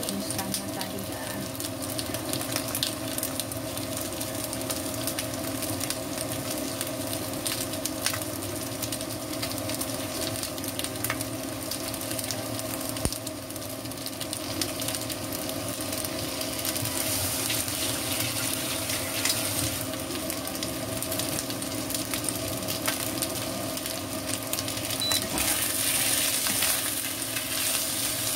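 Chicken wings sizzling in hot oil in a nonstick wok, with a steady low hum underneath. Near the end a spatula stirs and turns the wings around the pan and the sizzling gets louder.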